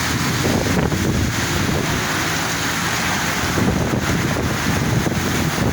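Heavy rain pouring steadily, a dense, even hiss with a low rumble underneath.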